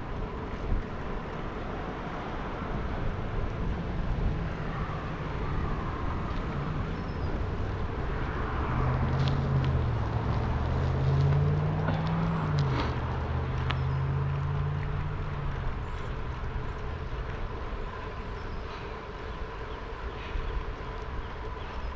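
Wind on the microphone and tyre noise of a bicycle on the move, with a motor vehicle's low engine hum passing through the middle, swelling and bending up and down in pitch.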